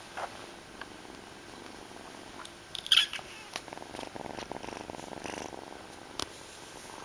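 Domestic cat purring close to the microphone, a fast even rumble that is plainest through the second half. A brief loud knock and rustle about three seconds in, with a few lighter clicks.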